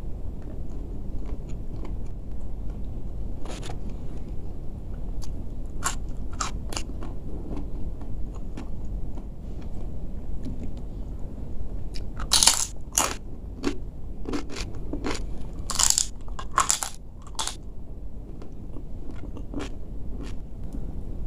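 Close-miked mouth sounds of a person chewing and biting crunchy food, with bursts of loud crunches about twelve seconds in and again around sixteen to seventeen seconds, over a steady low hum.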